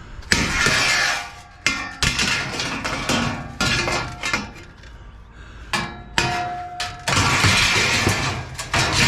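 Heavy metal scrap being handled and loaded: sharp clanks and knocks, some ringing briefly, with long stretches of metal scraping against metal.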